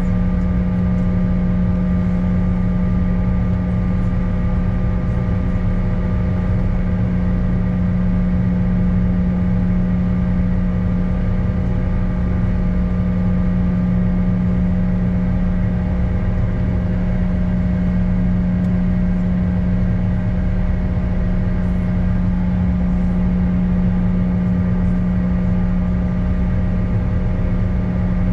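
Steady cabin noise aboard a CRJ-900 on the ground after landing: the rear-mounted General Electric CF34 turbofans hum with a strong steady low tone and fainter higher tones over a low rumble.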